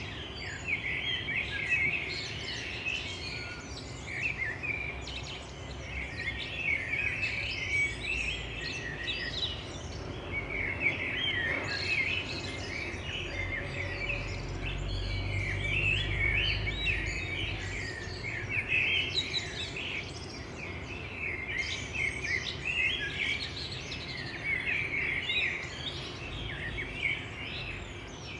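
Several birds chirping and singing at once in a dense, continuous outdoor chorus of short, high calls and trills, with a faint low rumble swelling slightly in the middle.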